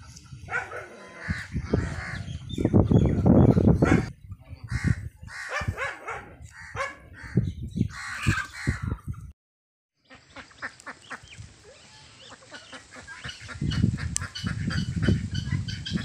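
Free-range poultry calling, with choppy low rumbling noise. The sound drops out for under a second about nine seconds in, then goes on more steadily.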